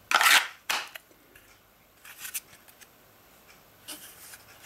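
Rigid Kydex holster shells and a pistol being handled and knocked together: a short clattering scrape and a sharper click in the first second, then a few faint taps.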